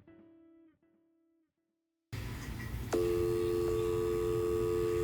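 Guitar notes ring out and fade away, then dead silence. Line hiss and hum come in, and about three seconds in a click is followed by a steady telephone dial tone, two pure tones held together.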